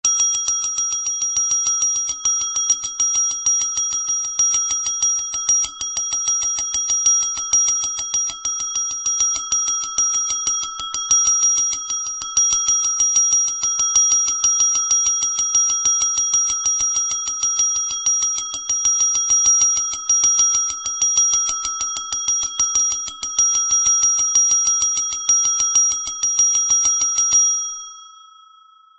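Small brass bell rung rapidly and without a break, fast repeated strikes over a steady ringing tone. Near the end the strikes stop and the bell rings out and fades.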